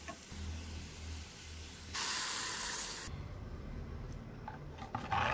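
Hot oil tempering of mustard seed, shallots and dried red chilies sizzling in one short hiss of about a second, midway through.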